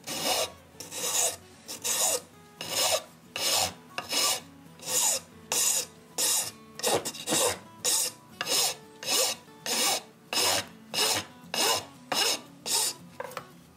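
Hand filing of wood: a flat steel file pushed and pulled across wooden pieces clamped in a bench vise, in steady, even strokes about two a second.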